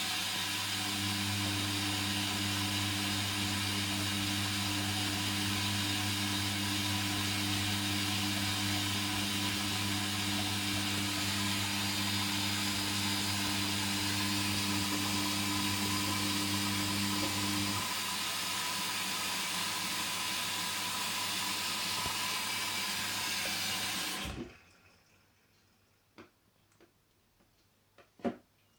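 Hoover Dynamic washing machine running water during its second rinse: a steady rush of water with a low mains hum that stops about two-thirds of the way in. The water then cuts off suddenly near the end, followed by a few faint clicks.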